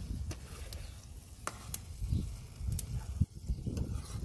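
Potatoes and cauliflower frying in a wok over a wood fire, with a metal spatula stirring and scraping against the pan in scattered clicks over a low rumble.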